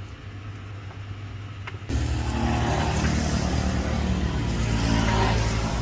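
A motor scooter's engine running steady and low. About two seconds in, the sound turns sharply louder into a steady rush of engine, wind and road noise as it rides along.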